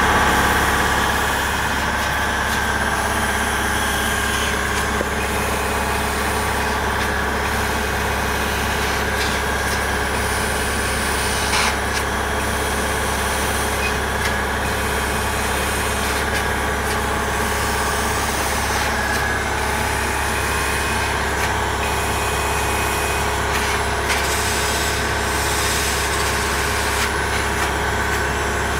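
Laser cutter running, a steady mechanical hum with a thin constant whine over it.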